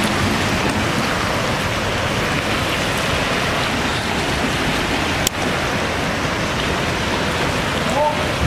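Flash-flood mud-and-debris flow surging down a street: a steady rushing noise, with one sharp click about five seconds in and a brief shout near the end.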